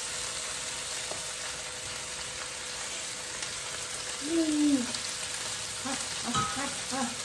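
Potatoes frying with bacon in a stovetop pan, a steady sizzle as they brown.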